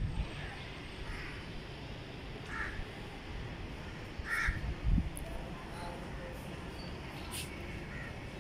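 Crows cawing, several short caws a second or two apart, over a steady low background rumble. A dull thump about five seconds in.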